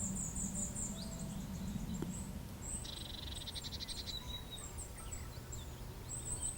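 Woodland birdsong: rapid series of very high chirps at the start and again near the end, with a short fast trill about three seconds in.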